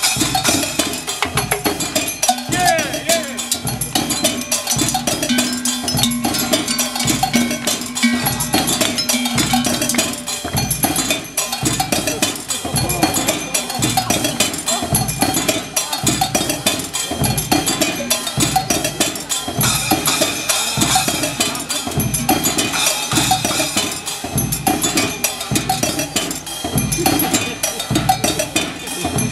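A pedal-driven mechanical music machine, the Cymbalobylette, playing a steady clattering rhythm of metallic strikes on cymbals, bells and drums. A held low note sounds for several seconds near the start.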